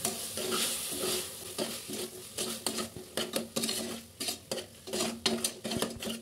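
A spoon stirring and scraping against a cooking pan of food frying in oil, with a sizzle that is strongest in the first second; the scraping strokes come irregularly, several a second.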